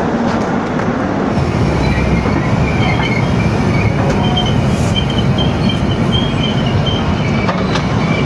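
Indian Railways LHB passenger coaches rolling at low speed, heard close to the train: a steady rumble with high, on-and-off squeals from the wheels on the rails.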